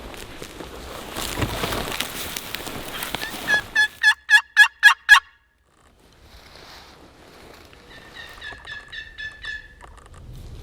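Rustling footsteps, then a rapid series of loud turkey notes about four seconds in that cuts off abruptly. A fainter series of the same notes follows near the end.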